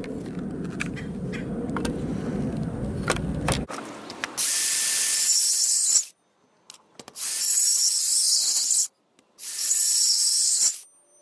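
A few handling clicks over a low rumble, then a cordless compact circular saw cutting dado kerfs across a pressure-treated 4x4 post in three short bursts of about a second and a half each, starting and stopping sharply.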